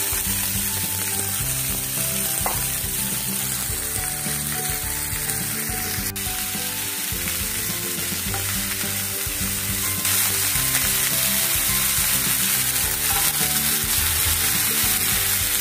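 Chopped fenugreek leaves sizzling in hot oil in a frying pan, a steady frying hiss that picks up about ten seconds in as raw green peas go in. Quiet background music plays underneath.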